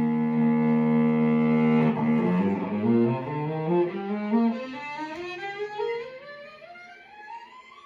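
Solo cello played with the bow: a long held note, then a scale climbing note by note into the high register, growing quieter as it rises.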